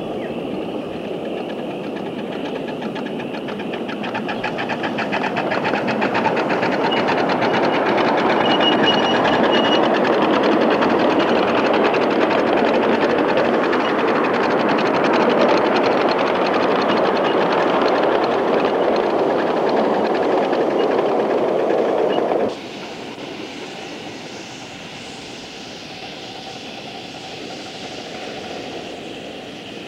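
A miniature ridable live steam locomotive and its riding cars run close past, a rushing mix of exhaust and rapid wheel clatter that grows louder over a few seconds. About three quarters of the way through it cuts off suddenly to a quieter steady running noise.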